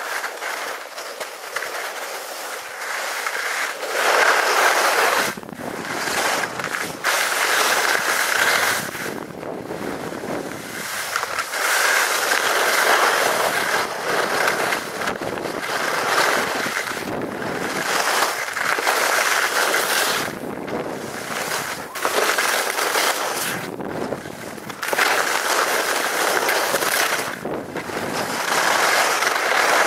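Skis scraping and hissing over snow as a skier runs down a slope, the noise swelling with each turn and dropping in short lulls between turns.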